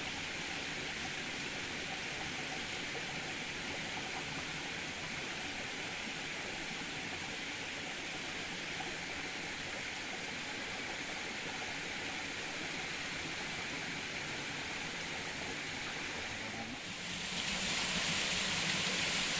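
Steady rush of flowing water in a small river, turning louder and brighter about seventeen seconds in.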